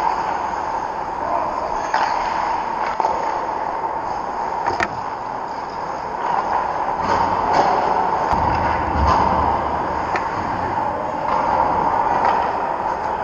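Ice hockey play on a rink: steady scraping of skate blades on the ice with a few sharp clacks scattered through, over a constant rink hum.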